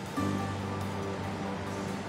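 Background music: held notes over a steady low bass.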